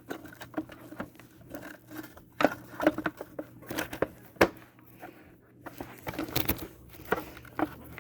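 Plastic parts of a Hoover React cordless vacuum being handled and fitted: scattered clicks and knocks, the sharpest a little past halfway.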